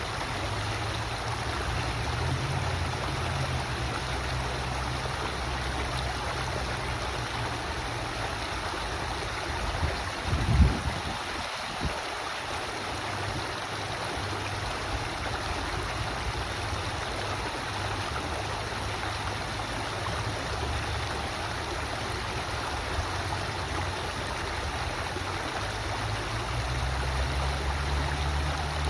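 River water flowing steadily, with a low rumble underneath that swells and fades. A brief low thump comes about ten seconds in.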